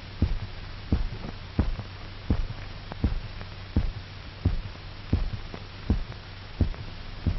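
Amplified heartbeat of an anaesthetised dog: steady, regular thumps about every three-quarters of a second (roughly 80 a minute), some heard as close double beats, over a low electrical hum. The regular beat is the sign of a normal pulse.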